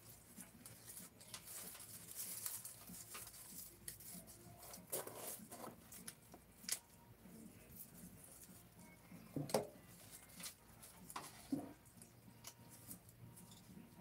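Light rustling with scattered small clicks and taps of gloved hands handling garden plant debris in a wheelbarrow, with a few sharper knocks in the second half.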